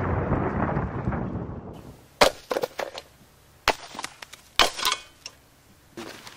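A low rumble dies away over the first two seconds, then come several sharp cracks or snaps, some single and some in quick pairs.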